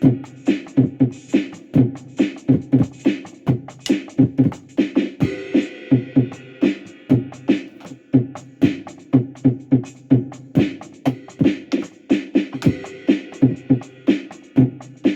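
Electronic beat music: a looping drum-machine-style pattern of short, pitched low hits, about four a second.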